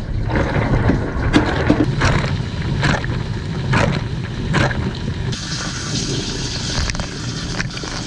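Inside a running dishwasher: water spray splashing and drumming, with surges about once a second over a steady low rumble from the wash cycle. About five seconds in, a steadier, higher hiss of spray joins.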